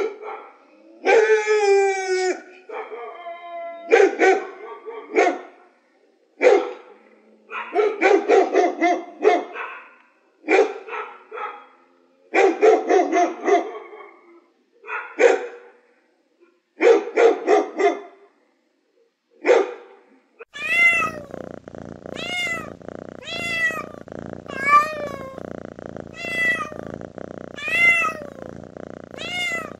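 A German Shepherd barking, with single barks and quick runs of three or four, pausing between them. About twenty seconds in, the sound changes to a domestic cat giving a string of short rising-and-falling meows about once a second over a steady low hum.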